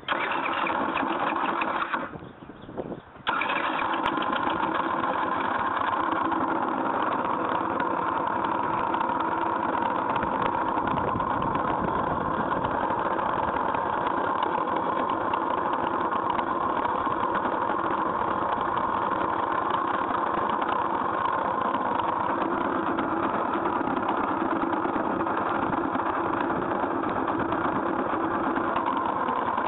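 GY6 50cc scooter engine starting and then running steadily at idle, making the noise its owner regards as a problem. The sound drops away for about a second, about two seconds in, then picks up again and runs on evenly.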